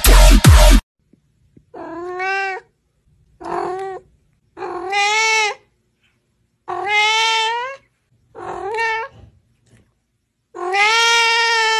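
Electronic music with a heavy beat cuts off suddenly in the first second. Then a cat meows six times, each meow about half a second to a second long and rising then falling in pitch, with short gaps between.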